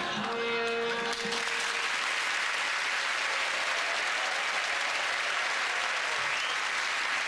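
Studio audience applauding, with a short burst of music in the first second or so.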